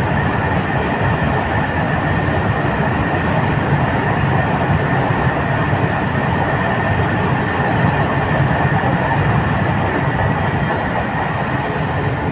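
Freight train of brand-new wagons rolling past on the rails: a steady rumble of wheels on track, with a thin, steady high tone over it.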